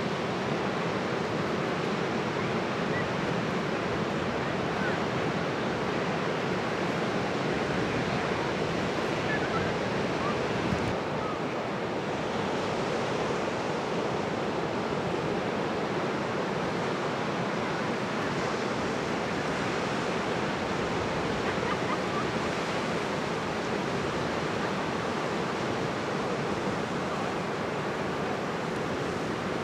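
Ocean surf breaking and washing up the beach: a steady, continuous rush of waves.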